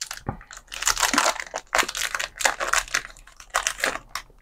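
Plastic chocolate-bar wrapper being torn open and unwrapped, crinkling and rustling in irregular crackles.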